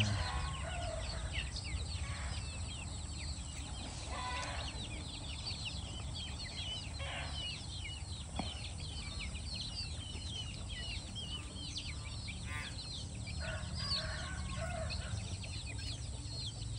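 A flock of young KUB kampung chickens peeping continuously in many short, high chirps, with a few lower clucks here and there.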